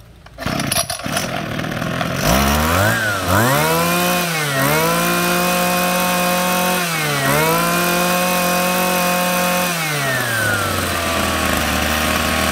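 Robin 25cc two-stroke brush cutter engine starting about two seconds in, revved up and held at high revs with two brief dips, then dropping back to idle near the end.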